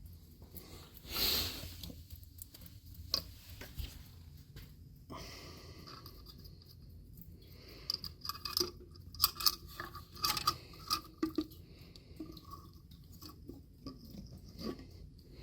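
Hands fitting the parts of a Watts 009 backflow preventer's relief valve back together: scattered small clicks, taps and scrapes, with a short rustle about a second in and a run of sharp metallic clicks a little past the middle.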